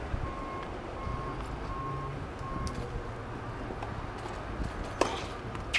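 Tennis stadium background noise, a steady low rumble with a faint intermittent beeping tone in the first half, then two sharp tennis ball impacts about two-thirds of a second apart near the end.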